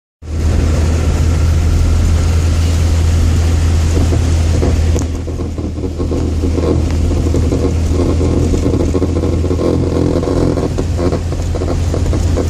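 Strange noise from the underside of a 2001 Chevrolet Corsa Wind, over the running car: a loud steady low hum with broad noise that turns rougher and more fluttering about five seconds in. The owner does not know its cause; it appears whenever the car splashes through a puddle or when the throttle is lifted off quickly.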